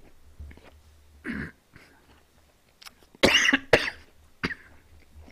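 A man coughing on a mouthful of food while eating. There is a short cough about a second in, then two loud, harsh coughs a little after three seconds in, and a smaller one after them.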